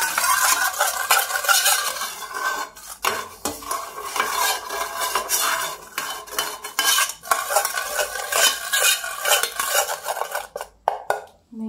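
A steel spoon scraping and clinking around the inside of a round tin pan, spreading ghee to grease it, in runs of strokes with a few brief pauses.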